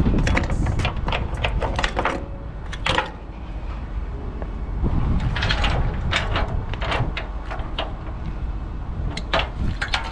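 Tie-down ratchet strap on a car-hauler trailer being worked: runs of quick metallic clicks in three bursts, over wind rumbling on the microphone.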